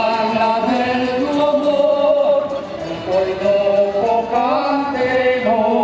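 A group of voices singing together in a slow, chant-like song, holding long notes that step from pitch to pitch.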